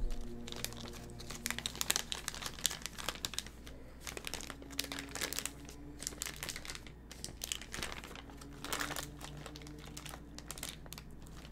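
Clear plastic piping bag crinkling as it is handled and worked to fit a decorating tip, an irregular crackle that is busiest about two to four seconds in and again near nine seconds.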